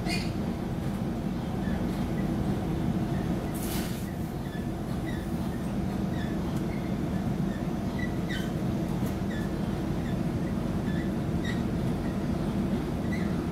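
Inside the carriage of an electric passenger train running along the line: a steady low rumble of wheels on track, with short high squeaks scattered throughout and a brief hiss about four seconds in.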